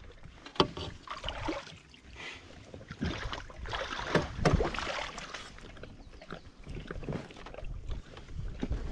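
A person in waders climbing into a loaded canoe from shallow water: water sloshing and splashing around the legs, with hollow knocks against the canoe, the loudest about half a second in and again around four seconds in, then the first paddle strokes.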